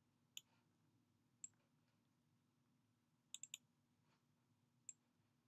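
Faint computer mouse clicks: single clicks about half a second and a second and a half in, a quick run of three about three and a half seconds in, and one more near the end, with near-silent room tone between.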